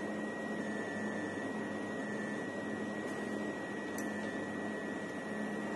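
Steady hum of a running cryostat's refrigeration unit, with a thin high whine over it and one faint click about four seconds in.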